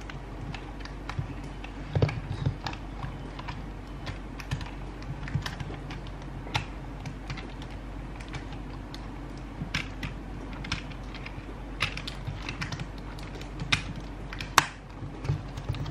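Fingers and fingernails picking and peeling at the plastic layers of an L.O.L. Surprise ball, making small irregular clicks and taps, with a sharper click about two seconds in and another near the end.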